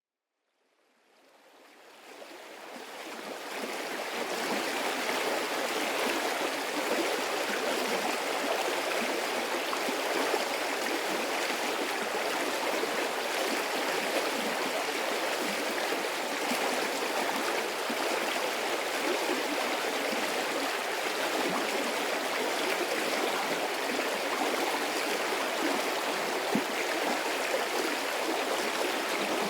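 A medium-sized stream of running water, a steady dense rush and babble that fades in over the first few seconds and then holds even.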